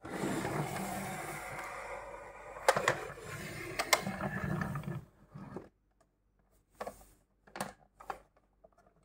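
Plastic toy car-carrier truck being turned and slid across a tabletop: a scraping rumble for about five seconds with a couple of sharp plastic clicks, then a few light clicks and taps as hands grip its clear plastic lid.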